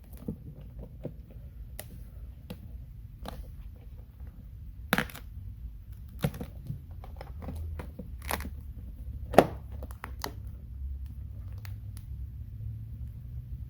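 Vinyl wrap film being pressed and worked around a case handle by hand: scattered crinkles and sharp clicks, the loudest about nine seconds in.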